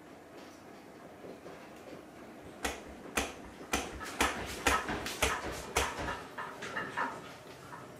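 A strong earthquake shaking the room: a quick irregular series of sharp knocks and rattles, about a dozen over some three seconds, starting a little under three seconds in.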